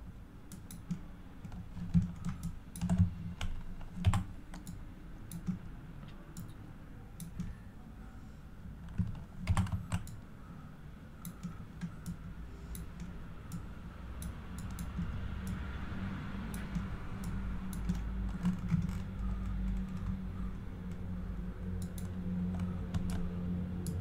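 Irregular clicks and taps of a computer keyboard and mouse, loudest in a cluster in the first few seconds and again about ten seconds in, over a low hum that grows louder in the second half.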